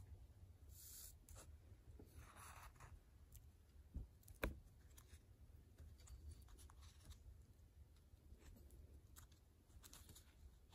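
Faint rustling of paper sheets and thread being handled and drawn through while hand-sewing a Coptic binding, with scattered light ticks; two sharper ticks come about four seconds in.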